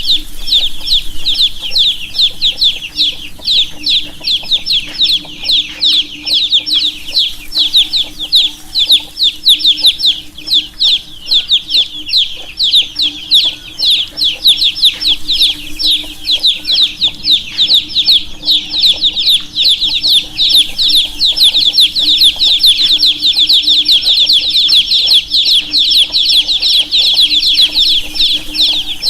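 A flock of baby chicks peeping without pause: many short, high chirps overlapping in a dense, continuous chorus. A low steady hum runs underneath.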